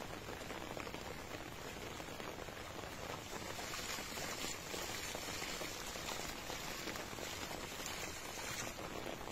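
Cast net being hauled in through shallow paddy water, splashing and sloshing over a steady patter of water. The splashing is louder from about three and a half seconds in until near the end.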